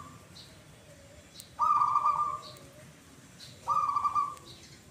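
Zebra doves (perkutut) cooing: two loud, drawn-out, level-pitched coo notes about two seconds apart, with faint short high chirps between them.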